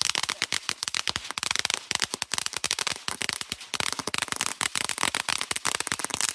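Consumer fireworks going off in a rapid, dense barrage of sharp cracks, many to the second, that stops abruptly near the end.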